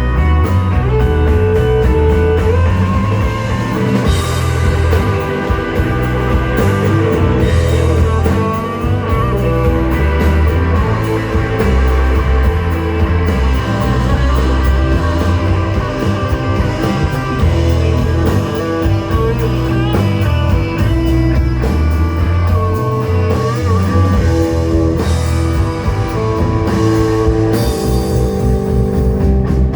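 Rock music with guitar over drums and a heavy bass line, playing steadily.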